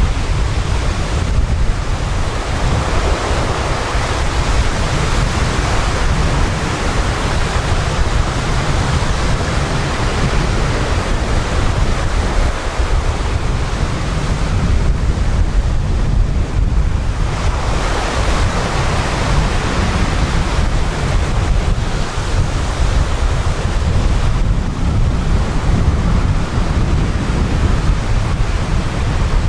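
Sea surf breaking and washing up a pebbly beach, swelling and easing every few seconds. Wind on the microphone adds a steady low rumble.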